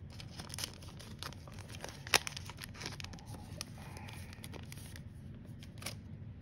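Foil trading-card pack being peeled open at its crimped seal, the wrapper crinkling and crackling with one sharper snap about two seconds in. It goes quieter after about five seconds as the cards slide out.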